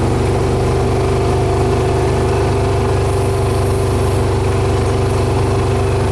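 A vehicle engine running steadily at a constant speed, loud and close.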